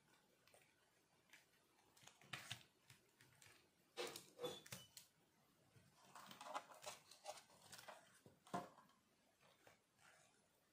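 Faint handling noise of small plastic RC crawler chassis being moved and set down on a table: scattered light knocks, clicks and rattles, with a sharper knock past the middle.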